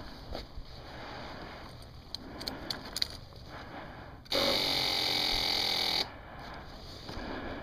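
Kawasaki KLR's electric starter spinning up and cranking for under two seconds, then cut off without the engine catching, on a cold, weak battery that the owner calls done. Before it, light clicks and rustling of handling.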